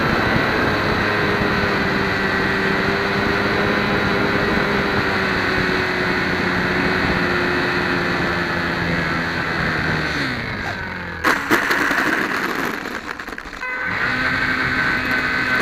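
HobbyZone Champ RC plane's small electric motor and propeller whining steadily, heard from the onboard camera with wind rush, the pitch slowly sinking. About ten seconds in the whine winds down, and a sharp knock and scraping follow as the plane touches down. A lower steady whine returns near the end.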